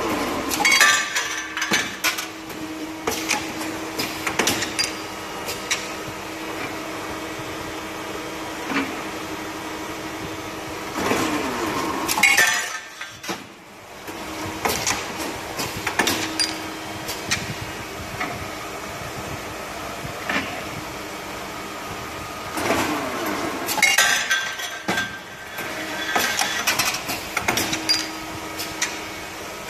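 Automatic horizontal tapping machine running through its cycle: a steady motor hum with a constant tone, metallic clicks and clinks, and a whine that slides in pitch during each working stroke. The cycle repeats roughly every eleven seconds, three times.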